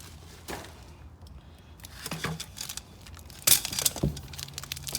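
Packaged kit parts being handled in a plastic storage bin: scattered rustling of bags and light clicks and knocks, with a sharper clatter about three and a half seconds in.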